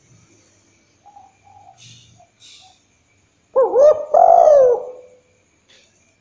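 Spotted dove cooing. A few soft low notes come first, then a loud two-part coo about halfway through that rises and falls in pitch.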